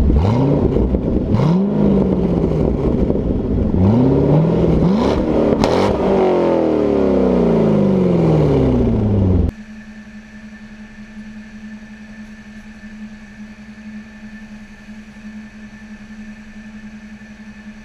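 Chevrolet Corvette V8 exhaust revved several times, each rev rising and falling in pitch, then a long falling note as the revs drop. About halfway through it cuts off suddenly to a much quieter, steady engine hum with a higher whine from a Caterpillar 330 excavator.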